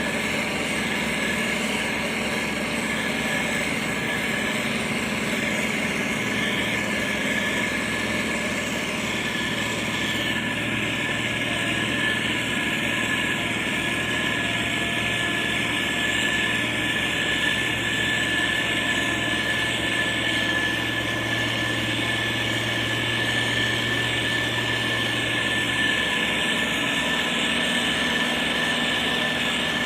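Motor grader's diesel engine running steadily, with a steady high whine over it. Its low note shifts about a third of the way in and again near the end.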